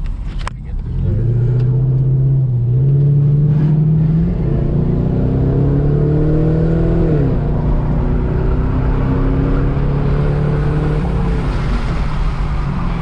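2010 Chevrolet Camaro SS's 6.2-litre V8 and exhaust accelerating under load, the engine note climbing in pitch. The pitch drops sharply about seven seconds in, then the engine pulls on at a steady note.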